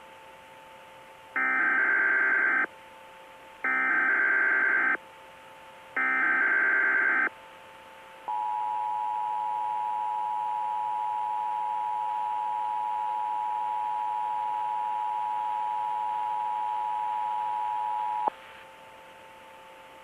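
Emergency Alert System SAME header: three bursts of digital data tones, each about a second long with short gaps between them. Then the two-tone EAS attention signal sounds steadily for about ten seconds and cuts off sharply.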